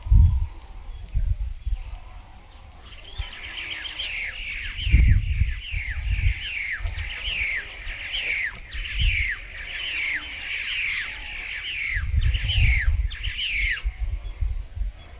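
Baya weaver birds calling: a run of short chirps, each dropping in pitch, about two a second, starting a few seconds in and stopping near the end. Low rumbles sound at the start, mid-way and near the end.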